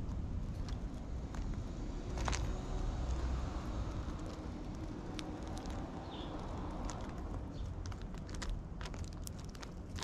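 Eurasian tree sparrows pecking seed off a wooden board: scattered sharp taps, coming thicker near the end, over a steady low background rumble.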